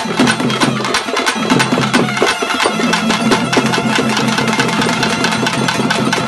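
Temple drum ensemble: large double-headed drums beaten with sticks and small hand drums in a fast, dense, continuous rhythm. Underneath runs a low drone that drops out briefly once or twice.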